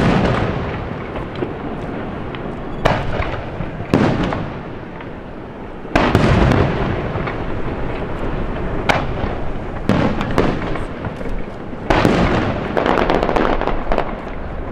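Aerial fireworks shells bursting: about eight heavy booms a second or a few seconds apart, each trailing off in a long fading rumble, then a dense run of quick sharp crackling pops near the end.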